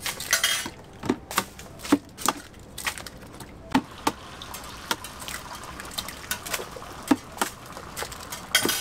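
Raw eggs being cracked one after another on the rim of a plastic tub, a sharp tap every half second to a second, with the eggs dropping and splashing into the tub.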